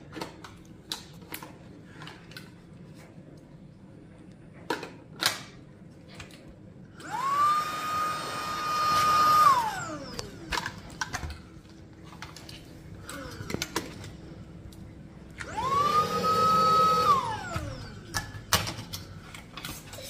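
Cordless stick vacuum's motor switched on twice for a couple of seconds each: it spins up quickly to a steady high whine, then winds down with a falling pitch. Plastic clicks and knocks from the vacuum being handled come in between.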